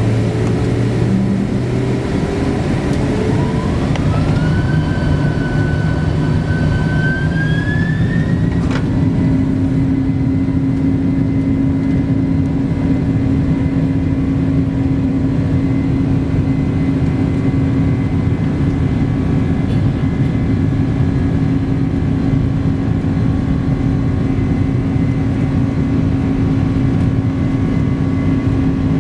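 Boeing 767-300's GE CF6 turbofan engines, heard from inside the cabin, spooling up to takeoff thrust. A whine rises in pitch over several seconds and levels off, then gives way to a steady, loud engine noise with a low hum. There is a sharp click about nine seconds in.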